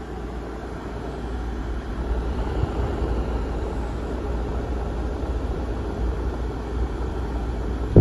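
Camping Cone mini air conditioner's fan blowing cold air out of its round outlet: a steady rush, with the airflow buffeting the microphone as a low rumble. It grows louder about two seconds in as the microphone nears the vent, and a sharp bump comes at the very end.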